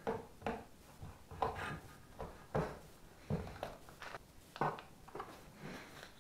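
Irregular knocks and clicks of a power cable, plug and tools being handled on loose wooden floorboards, a dozen or so light knocks about two a second, including a plug being pushed into an extension lead.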